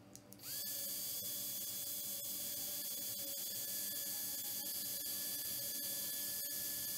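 A few clicks, then the blö micro cooling fan starts: its motor spins up within a fraction of a second and settles into a steady high-pitched whine over an airy hiss.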